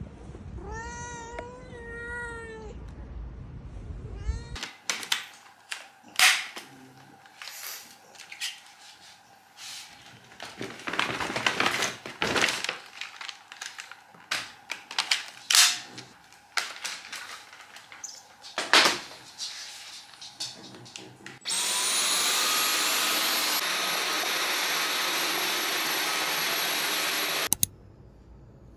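A cat meowing a few times, then a series of sharp clicks and knocks as a stick vacuum cleaner is handled. Then the vacuum's motor spins up with a rising whine, runs steadily for about six seconds, and cuts off suddenly.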